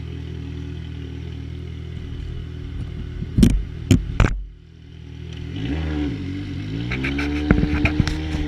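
Yamaha XJ6 inline-four motorcycle engine with a 4x1 Atalla aftermarket exhaust running steadily. Three sharp cracks come about three and a half to four seconds in, then the level drops briefly and the engine note dips and climbs again before holding steady.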